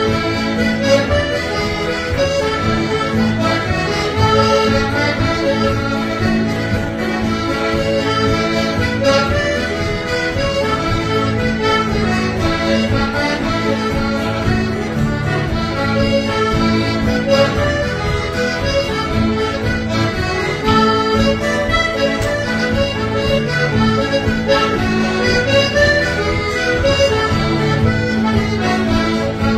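Accordion music: a traditional tune with a moving melody over held bass notes.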